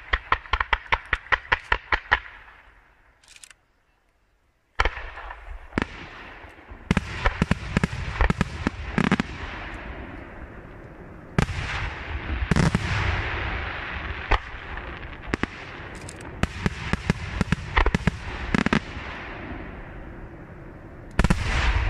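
Fireworks display: a rapid, even volley of shots, about five a second, dies away in the first two seconds. After a moment of near silence, a loud bang opens a run of aerial shells going off irregularly, each bang followed by crackle.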